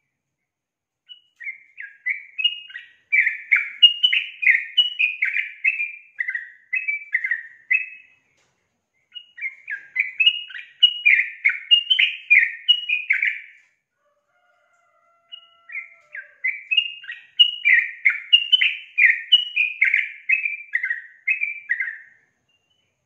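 Female yellow-vented bulbul (trucukan) singing in three bouts of quick, bubbling, chattering notes. Each bout lasts several seconds, with short silent pauses between.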